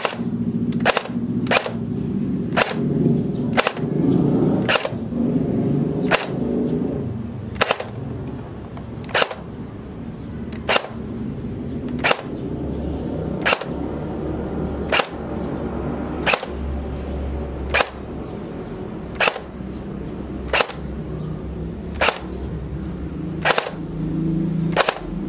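Classic Army P90 airsoft electric gun (AEG) firing single shots, about nineteen sharp cracks, roughly one a second at first and then evenly about every one and a half seconds, over a steady low background rumble.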